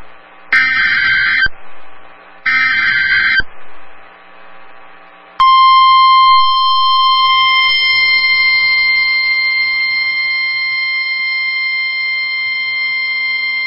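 NOAA Weather Radio SAME alert header: two roughly one-second bursts of warbling two-tone digital data about two seconds apart, closing a set of three. About five seconds in, the steady 1050 Hz warning alert tone begins and holds, marking the start of the next flood warning broadcast.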